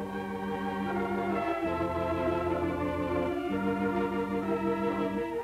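Background music: sustained organ chords, moving to a new chord three times.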